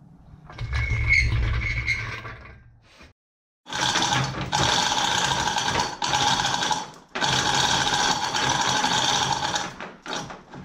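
Manual chain hoist being worked by its hand chain to lift a cast-iron engine block: the chain rattles through the hoist and the ratchet clicks, in three long spells of pulling. A shorter stretch of mechanical rattling comes first.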